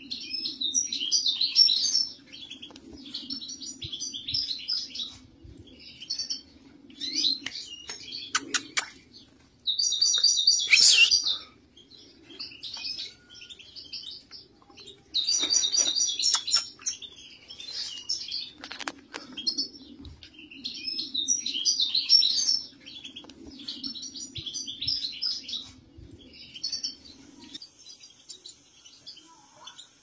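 European goldfinches singing: repeated bursts of fast, liquid twittering song, loudest twice near the middle. A low steady hum runs underneath and stops near the end.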